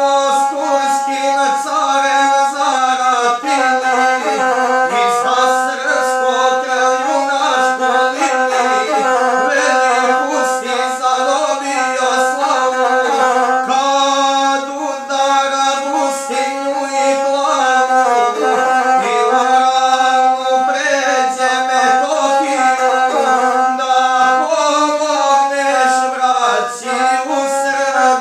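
A gusle, the bowed single-string Balkan folk fiddle, played continuously under a man's voice singing a guslar epic song. The voice and instrument hold long notes that step between neighbouring pitches with small ornaments.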